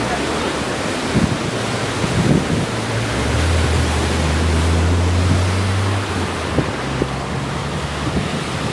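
Rushing floodwater with wind buffeting the microphone. A low steady hum comes in about three seconds in and fades about three seconds later.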